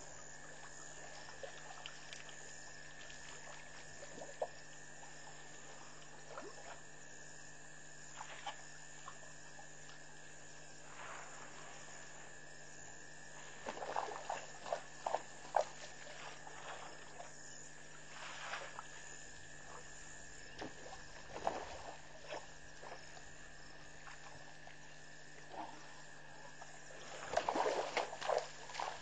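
Elephants drinking at a waterhole: water splashes and dribbles from their trunks in scattered short bursts, busiest near the end, over a steady hum.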